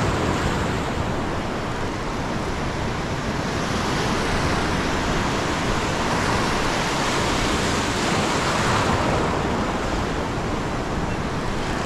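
Surf breaking and washing up a sandy beach: a steady rush of noise that swells a little in the middle.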